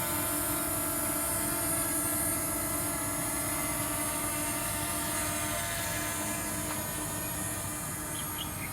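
DJI Mini 2 SE quadcopter's propellers and motors running with a steady multi-tone whine that slowly fades as the drone flies away. Faint insect chirps come in near the end.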